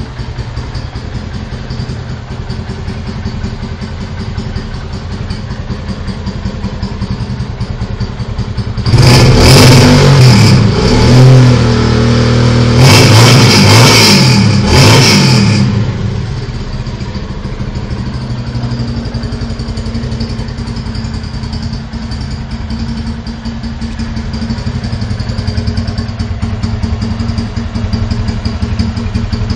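Engine with a loud aftermarket exhaust idling, then revved hard in about four quick blips for some six seconds before it drops back to idle.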